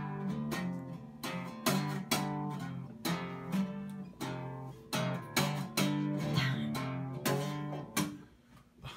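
Acoustic guitar playing a steady rhythm of plucked chords, about two to three a second, stopping shortly before the end.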